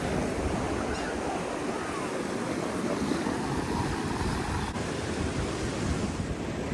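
Steady wash of surf on a sandy beach, with some wind rumbling on the microphone.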